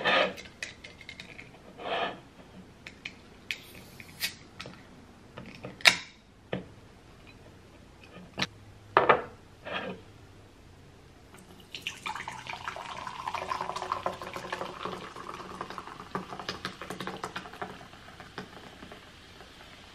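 A can of plum soda is handled with a few sharp clicks and taps, then about twelve seconds in it is poured into a glass: a steady run of liquid with fizz that lasts about seven seconds.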